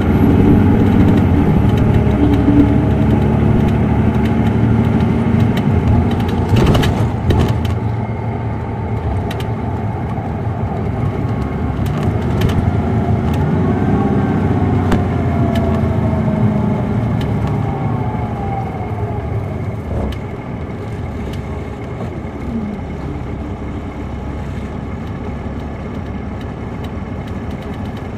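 2007 MCI D4500CL coach's Caterpillar C13 diesel engine running under way, heard from inside the cabin. There is a short rattle of clicks about a quarter of the way in. Over the second half the engine sound gets quieter and its pitch falls as it eases off.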